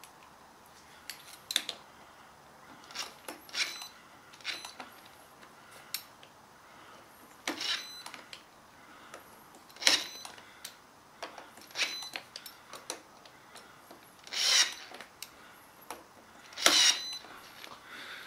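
Cordless drill-driver running in a series of brief bursts, driving home the screws that fix a steering wheel to its hub adapter. The two bursts near the end are the longest and loudest.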